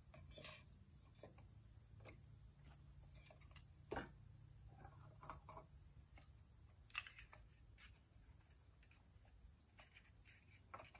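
Near silence broken by scattered faint clicks, taps and rustles of gear being handled on a table, the sharpest knocks about four and seven seconds in.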